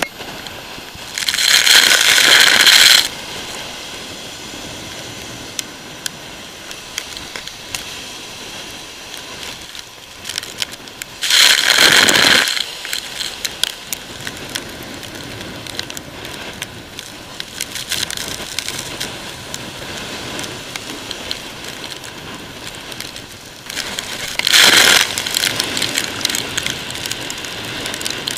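Storm wind and breaking surf, with a steady rush and constant crackling of wind and spray on the microphone. Three loud hissing surges, each about a second and a half long, come about a second in, near the middle and near the end.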